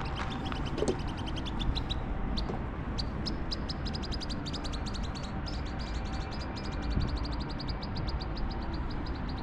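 A bird calling in a long, fast, evenly spaced series of short high chirps, over a steady low rumble.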